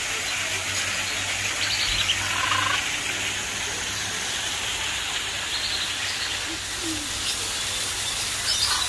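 Short, high chirping animal calls a few times, around two seconds in, mid-way and near the end, over a steady hiss.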